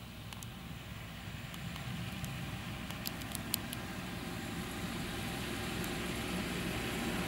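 Diesel cane locomotive running as it hauls a train of loaded cane bins, a steady low rumble that grows louder as it approaches. A few sharp clicks come about three seconds in.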